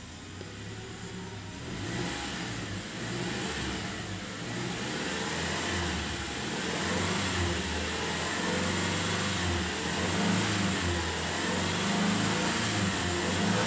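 2010 Subaru Outback's 2.5-litre flat-four petrol engine, in Park, revved up from idle to about 3000 rpm over the first couple of seconds and held there, running steadily, heard from inside the cabin.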